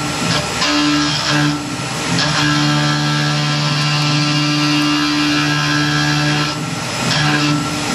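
Tormach PCNC 1100 CNC mill cutting aluminum stock, its spindle turning an end mill at about 4000 rpm with a steady humming cutting tone and hiss. The tone breaks twice into a rougher, noisier stretch as the cut changes.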